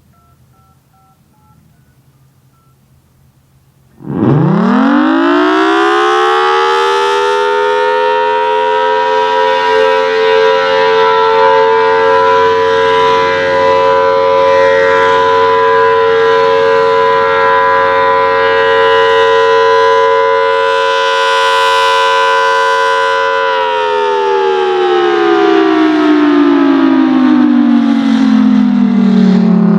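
Federal Signal Thunderbolt 1000T outdoor warning siren sounding its steady alert signal, super loud. It winds up quickly about four seconds in, holds one steady tone, then winds down in a long falling pitch over the last six seconds.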